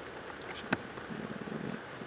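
Steady rain hissing. A single sharp tap about a third of the way in, then a short low, rough rattle for about half a second.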